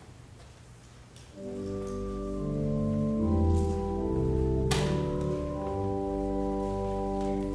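Church organ starts playing about a second and a half in, sustained chords moving from one to the next. A single sharp click sounds over it about five seconds in.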